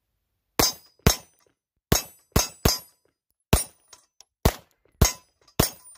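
Glock 19 Gen 5 MOS 9 mm pistol firing nine shots at an uneven pace, about half a second to a second apart, some in quick pairs. Each shot is a sharp crack with a brief ringing tail.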